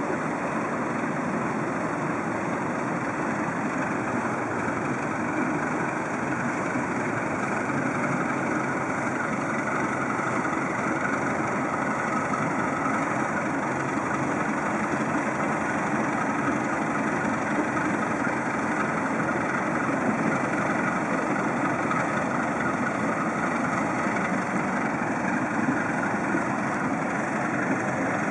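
Diesel engine of a motor cargo barge under way on the river, a steady drone with no change in pitch.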